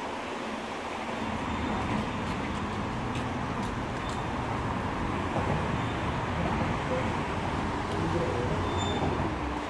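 Steady city traffic noise, the rumble of passing road vehicles, growing a little louder about a second in.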